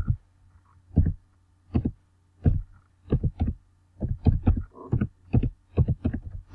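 Computer keyboard keystrokes, typed one at a time as the word "multiplication" is entered: slow and spaced at first, then quicker from about three seconds in, each keystroke a dull thud. A faint low hum sits beneath.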